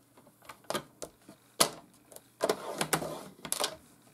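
Paper trimmer's scoring blade pressed down and run along its track over cardstock to score a fold line: a few sharp clicks, the loudest about one and a half seconds in, then longer scraping strokes in the second half.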